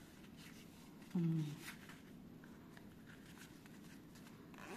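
Faint rustling and soft clicks of a fabric wristband being handled and fitted onto a child's wrist, with one short spoken word about a second in.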